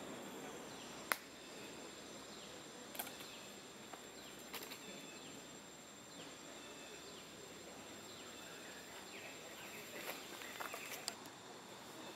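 Outdoor ambience of a steady high insect drone with scattered short bird chirps. A few sharp clicks stand out, the loudest about a second in, with a small cluster near the end.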